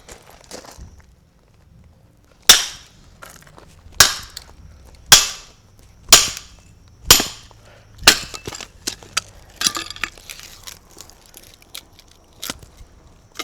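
Hatchet blows splitting firewood into kindling: six sharp strikes about a second apart, followed by lighter clicks and cracks of wood.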